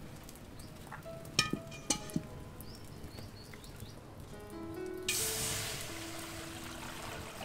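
Water poured from a plastic basin into a steel wok, splashing in suddenly about five seconds in and then tapering off. Soft background music plays throughout, with a few sharp clicks about a second and a half in.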